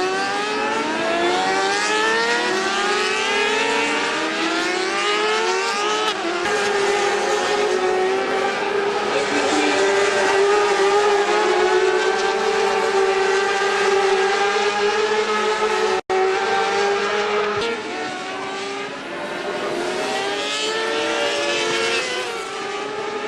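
Racing motorcycle engines at high revs, the pitch rising again and again as they accelerate through the gears, with a stretch held at steady high revs in the middle. The sound cuts out for an instant about two-thirds of the way through.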